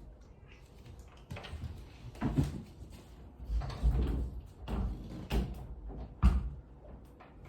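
A series of irregular knocks and thuds, about six louder strokes a second or so apart, the sharpest one near the end.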